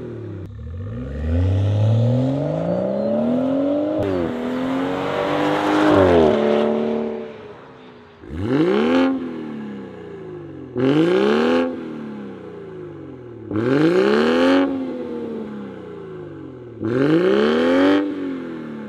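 BMW 340i's B58 3.0-litre turbocharged straight-six revved while standing, through a Turner Motorsports cat-back exhaust. With the exhaust valves open it climbs and holds high revs before falling back; then, with the valves closed, four quick blips about every three seconds, each rising sharply and dropping back to idle.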